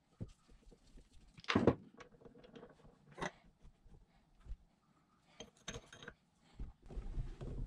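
Metal parts and hand tools being handled on a workbench while working on a hydraulic drive pump: scattered clinks and clicks with a few sharper knocks, the loudest about one and a half seconds in.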